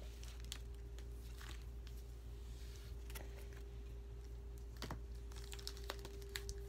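Pokémon trading cards being handled and flipped through, with scattered soft clicks and rustles as the cards slide over one another, over a steady low hum.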